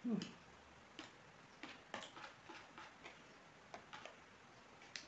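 Metal spoon clicking and scraping against a plastic bowl while a steamed momo is cut up, a scatter of faint, irregular clicks. A short low sound right at the start is the loudest moment.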